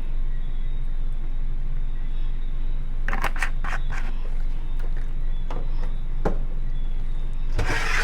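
Small home blender's motor running steadily as it blends a thick seasoning mix, with a few knocks about three seconds in and again near the end.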